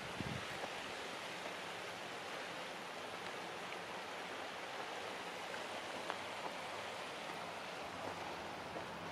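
Steady rushing of a shallow spring creek flowing over mud flats, with a few faint ticks over it.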